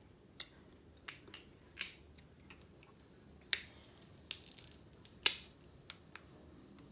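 Snow crab shell cracking and snapping in the hands as the meat is picked out: a series of short, sharp cracks, the loudest a little past five seconds in.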